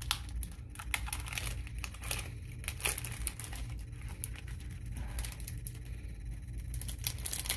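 Paqui One Chip Challenge foil pouch crinkling and crackling in irregular bursts as it is torn open and handled, over a faint steady low hum.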